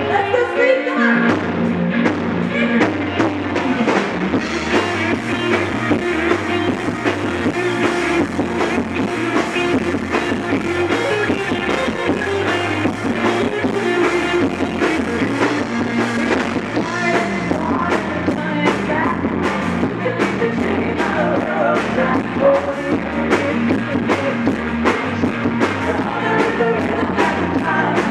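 A rock and roll song playing, with singing, guitar and a steady drum beat.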